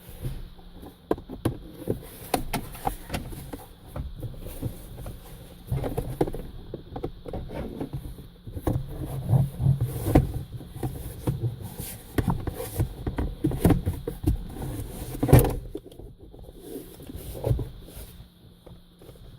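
Center console trim of a 1986–89 Honda Accord being handled and fitted back over the shifter: irregular knocks, clicks and rubbing, with one louder knock about fifteen seconds in.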